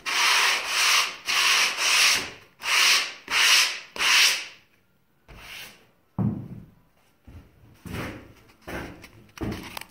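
Sandpaper wrapped over soft foam pipe insulation, rubbed back and forth across the flat face of a wooden door as a homemade hand sander. It makes about seven even, hissing strokes, roughly one and a half a second, then stops. A thump follows about six seconds in, with a few softer knocks after it.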